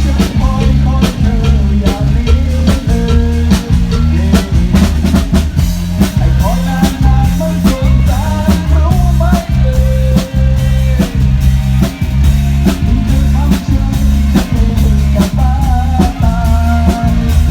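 Music with a drum kit beat, a bass line and a melody over it.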